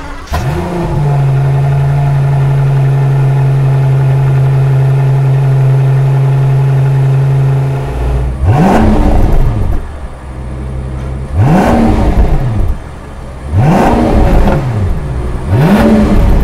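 Rolls-Royce Phantom's 6.75-litre twin-turbo V12 heard through its Mansory exhaust. It fires up with a brief flare, then idles steadily. About eight seconds in it is revved four times, each rev rising and falling away, about two seconds apart.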